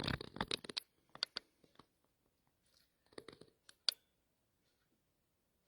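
Scattered light clicks and taps of cardstock and paper-crafting tools being handled on a scoreboard. There is a small cluster at the start, another just after three seconds, and one sharper click near four seconds.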